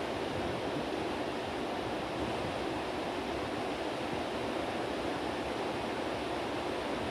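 Heavy rain falling, a steady even rush of noise.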